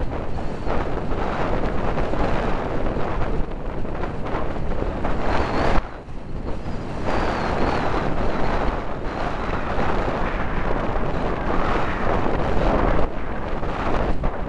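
Strong wind buffeting the microphone in gusts, dropping briefly about six seconds in, over surf breaking on the shore.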